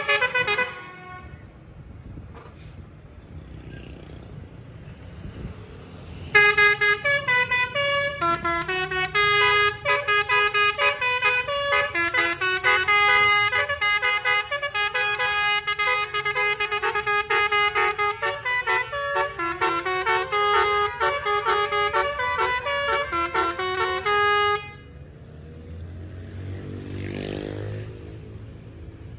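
Basuri telolet musical horn on a bus playing a tune of quickly stepping notes for about eighteen seconds, starting about six seconds in, over a low engine rumble. The end of an earlier horn phrase sounds at the very start, and near the end an engine briefly revs up and back down.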